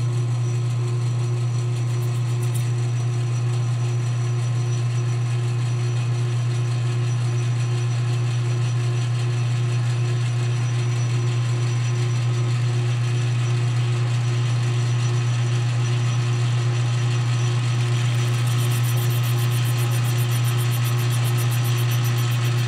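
Metal lathe running at steady speed, its chuck spinning a glued PVC pipe coupling against the turning tool, with a steady low motor hum. A fine, rapid high ticking joins for the last few seconds.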